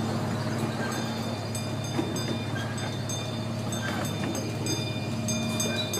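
Miniature railroad train running steadily, heard from aboard: a continuous low rumble of the train and its wheels on the track, with a few faint clicks.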